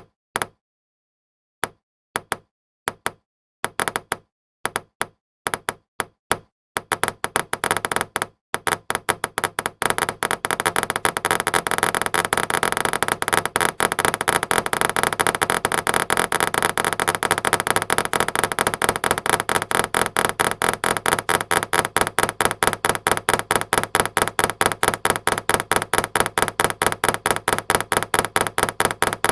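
Geiger-counter-style clicking sound effect, each click set off by a bouncing ball. It starts as scattered single clicks, then after about seven seconds speeds up into a fast, dense crackle of clicks that keeps on without a break.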